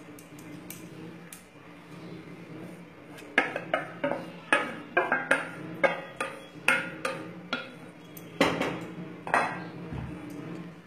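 Kitchen utensils knocking against a pan and a steel bowl while cooked rice is spooned over a filling: a run of sharp, irregular knocks starting about three seconds in and lasting about six seconds.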